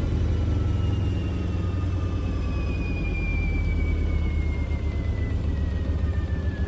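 Hoover H-WASH 700 washing machine in an interim spin with a badly unbalanced load: the drum rumbles heavily while the motor's whine falls steadily in pitch as the drum slows.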